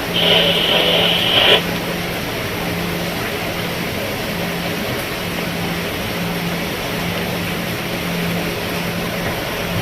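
Steady rain falling on a roof, an even hiss. In the first second and a half a louder sound with a high, steady edge rides over it and cuts off abruptly.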